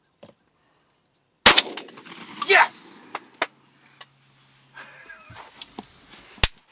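A single shotgun shot about a second and a half in, taken at a gobbler strutting at the decoys. A loud, sliding cry follows right after, then a few sharp clicks and knocks.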